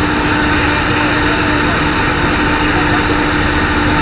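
Steady drone of the drilling rig's heavy engines running, a constant hum over dense machine noise.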